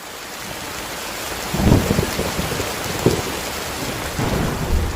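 Steady heavy rain hiss fading in, with low thunder rumbles swelling about a second and a half in, again about three seconds in, and near the end.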